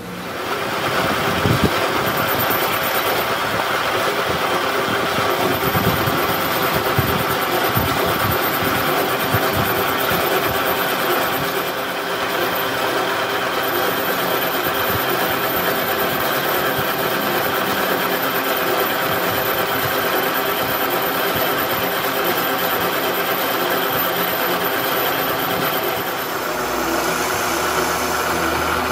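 Metal lathe running under load while its cutting tool turns down the outside of a steel tube for a hydraulic jack shaft: a loud, steady machining noise with several steady tones, changing slightly near the end.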